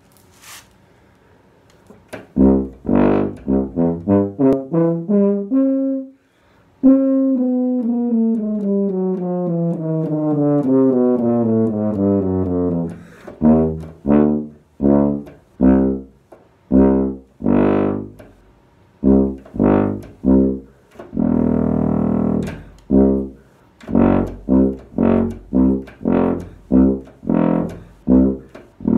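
CC tuba played solo. Quick separate notes step downward, then a long slurred run falls smoothly, followed by many short detached notes and one longer held note about three quarters of the way through.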